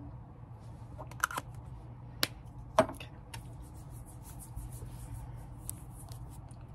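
Three sharp clicks in the first three seconds, then a run of faint, quick crackling taps and rubs of fingertips against the camera lens as primer is dabbed onto it.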